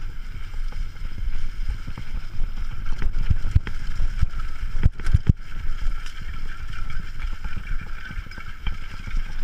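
Mountain bike riding over a leaf-covered forest trail, heard through a bike-mounted action camera: steady rumble and wind on the microphone with the rattle of the bike over the rough ground. Several knocks as the bike jolts over bumps, the sharpest two close together about five seconds in.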